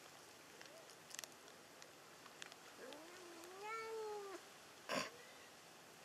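Cat meowing: a faint short mew, then a long drawn-out meow about three seconds in that rises and then falls. A brief sharp noise about five seconds in is the loudest sound.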